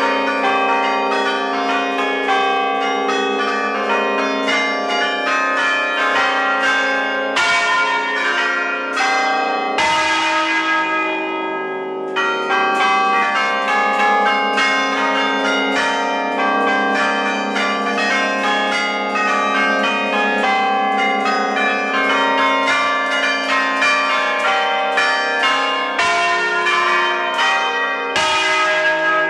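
Ring of church bells tuned in E-flat major, cast by Ecat, swung on wheels in the Roman style (alla romana) and striking in a fast, continuous peal of overlapping clangs. A few heavier strokes stand out, about a third of the way in and again near the end.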